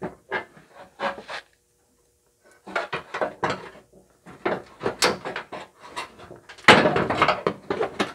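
Irregular knocks, clanks and scrapes of hand work on a car's front fender and wheel well, with a louder, denser scraping stretch about seven seconds in.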